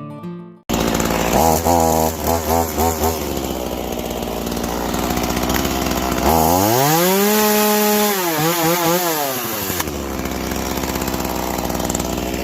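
Ryobi RY3716 37 cc two-stroke gas chainsaw running. It idles, is blipped on the throttle a few times, then is revved up to full speed about six seconds in and held high for a couple of seconds. It wavers as it comes down and drops back to idle near the end.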